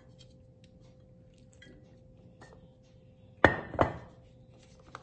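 Plastic spoon stirring a flour-and-water batter in a glass bowl: light scraping clicks, then two sharp knocks of the spoon against the glass about three and a half seconds in.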